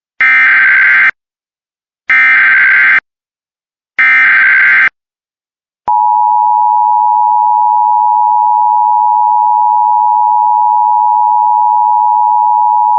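Emergency Alert System broadcast tones: three short bursts of SAME header data, each about a second long and two seconds apart, then about six seconds in the steady two-tone EAS attention signal starts and holds.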